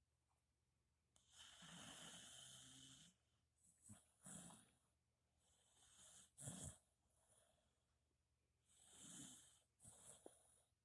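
Dog snoring faintly: a long snoring breath about a second in, then several shorter snoring breaths.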